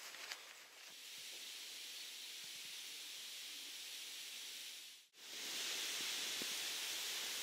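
A few footsteps on a dirt path at the start, then a steady hiss of outdoor ambience. It cuts out for a moment about five seconds in and comes back a little louder.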